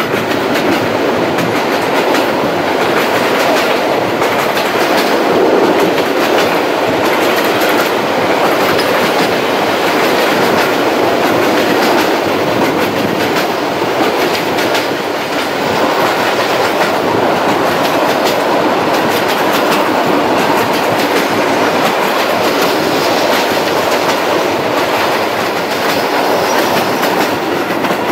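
Passenger train running along the line: a steady rolling rumble with repeated clicks of the wheels over the rail joints.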